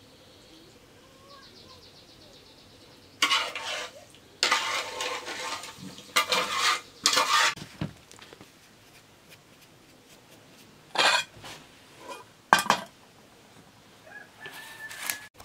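A metal spoon scrapes oil out of an aluminium pot into a steel bowl of flour in several rasping bursts. Then hands mix the dough in the metal bowl, with one sharp clank late on.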